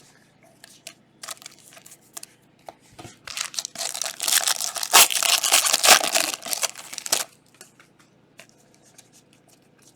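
Foil trading-card pack wrapper being torn open and crinkled, a dense crackling from about three seconds in until about seven seconds in, with scattered light clicks before and after.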